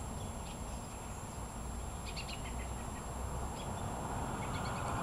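Faint short bird chirps scattered over a steady low outdoor rumble, with a wider noise starting to swell near the end.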